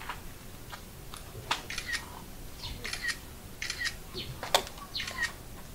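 A bird calling repeatedly, short chirpy phrases about once a second, each ending in a brief hooked note, with one sharp click about three-quarters of the way through.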